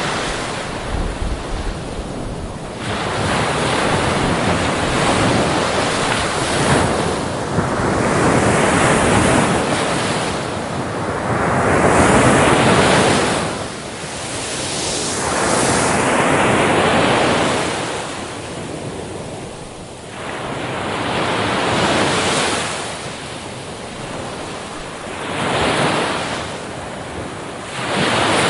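Waves washing in, a steady rush of water that swells and falls back every few seconds, with wind noise on the microphone.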